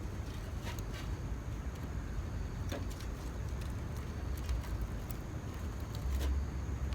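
Small feather-stick kindling fire crackling, with a few sharp pops, over a steady low rumble of wind on the microphone.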